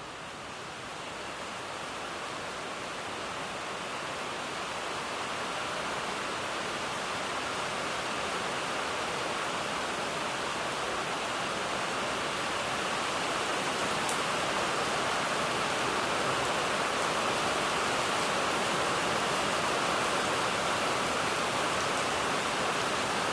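Rain falling as a steady hiss that grows louder over the first half and then holds even, as the rain comes closer.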